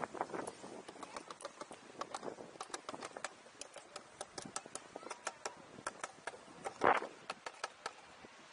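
Footsteps on hard basalt rock: many sharp, irregular clicks and knocks, several a second. A brief louder rush of noise comes about seven seconds in.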